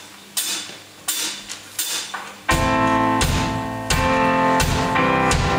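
Live band playing a slow instrumental intro: a few light strikes on the beat, then full chords struck in the same steady pulse from about two and a half seconds in.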